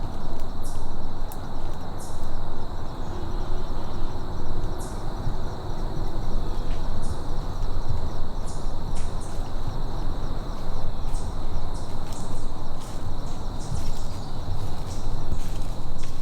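Woodland ambience: an uneven low rushing noise, loudest and gusting, with a steady high insect drone and scattered short bird chips through it.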